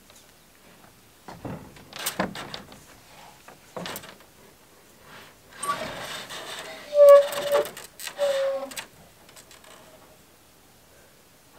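A solar panel knocking against a metal shed roof as it is set down, then scraping across the roof sheets for about three seconds while it is slid into place, with short squeals in the scrape.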